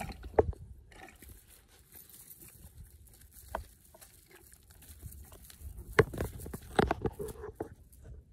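A cast net with its chain weights being handled and shifted on dry ground: soft rustling with a few sharp knocks, the loudest about six and seven seconds in.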